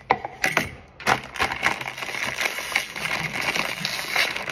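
Foil snack bag crinkling while potato chips rattle and crunch inside it as they are shaken out, a dense crackle with several sharper snaps.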